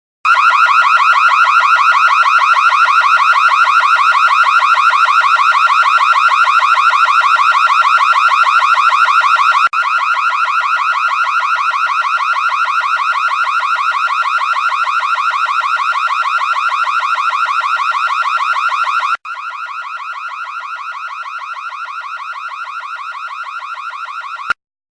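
Electronic alarm-like buzzing tone, steady and rapidly pulsing. It drops in loudness twice, then cuts off with a click shortly before the end.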